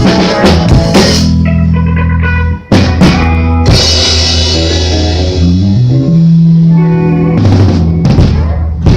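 Live band playing with no singing: drum kit hits and cymbal crashes over long held chords from guitar and bass, the bass stepping up to a higher note about halfway through.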